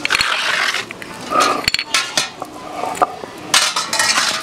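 Terracotta lid clinking and scraping against the rim of an aluminium cooking pot: a string of short knocks and clinks, a few with a brief ringing tone.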